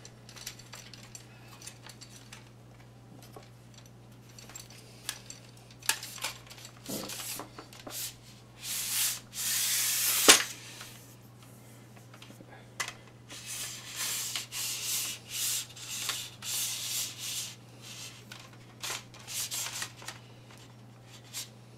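Extendable metal telescope tripod legs being slid through their plastic leg clamps, a rasping slide in several stretches with scattered clicks and one sharp knock about ten seconds in as the clamps are loosened and tightened.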